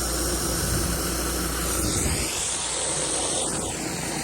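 10-gallon-per-minute pressure washer running with a surface cleaner spraying concrete: a steady engine hum under an even hiss of water.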